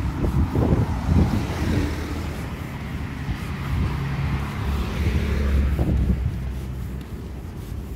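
A car passing on the street: engine hum and tyre hiss swell to a peak about five seconds in, then fade, with wind buffeting the microphone.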